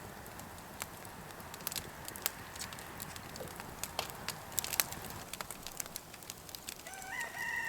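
Campfire crackling, with scattered sharp snaps all through. Near the end a rooster starts crowing.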